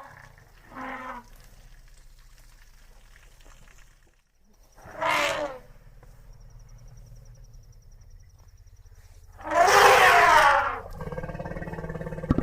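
Asian elephant (Elephas maximus) trumpeting. There is a faint short call about a second in, a louder call falling in pitch at about five seconds, and the loudest, longest trumpet at about ten seconds. A lower, steadier call follows near the end.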